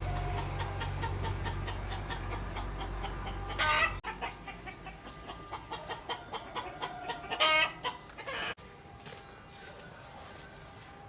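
Chickens clucking, with two louder squawks about four and seven and a half seconds in. A low rumble underneath stops abruptly about four seconds in, and the sound drops sharply again near the end.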